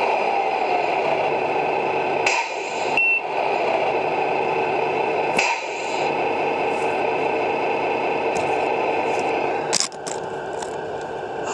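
The Tamiya Scania R620 RC truck's sound unit plays a running diesel engine through its small onboard speaker. Two short clicks, each followed by a brief hiss, come about two and five seconds in, and the sound changes near the end as the truck moves off.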